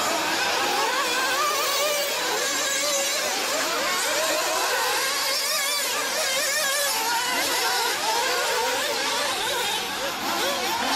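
Several nitro RC buggy engines buzzing at high revs, their pitches rising and falling as they accelerate and brake around the track.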